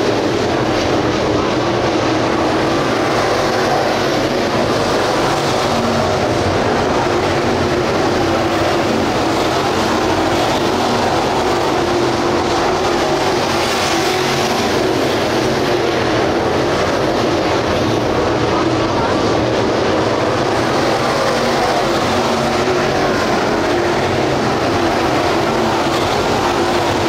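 Dirt late model race cars with GM 602 crate V8 engines running flat out around a dirt oval. Several engines blend into a loud, steady drone that swells briefly about halfway through as cars pass close.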